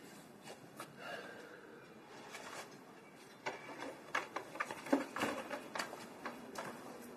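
Irregular light clicks and taps, sparse at first and growing busier and louder about three and a half seconds in.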